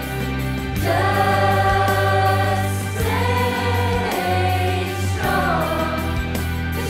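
A group of voices singing long held notes together over a pop backing track with a steady bass, in three drawn-out phrases.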